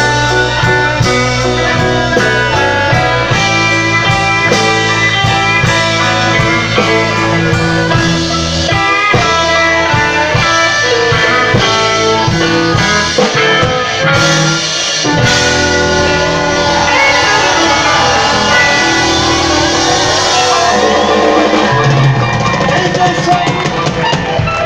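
Live blues band playing without vocals: electric guitar over a drum kit.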